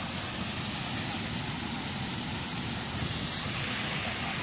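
Waterfall: water falling and rushing in a steady, unbroken roar of noise.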